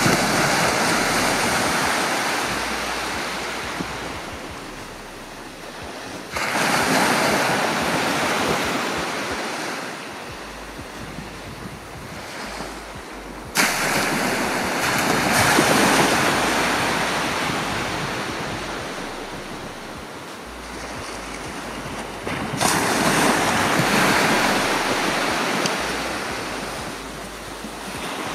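Small sea waves breaking on a sandy beach: three times the surf crashes in suddenly and then washes out slowly over several seconds, with the fading tail of an earlier wave at the start.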